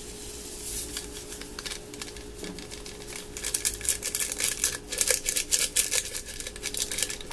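A drink-mix sachet crinkling and being shaken as powdered strawberry drink mix pours from it into a plastic blender jug: quick small crackles, growing denser about three seconds in. A faint steady hum runs underneath.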